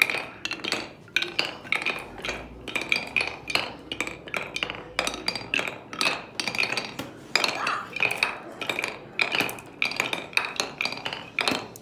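Glass marble rolling and dropping through a wooden-plank marble run, clicking and clinking against the wooden troughs in a quick, uneven series of knocks.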